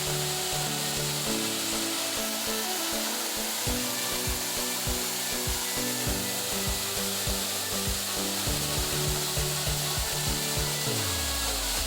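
Background music with a low, stepping bass line and a regular beat, over a steady rushing hiss of falling water.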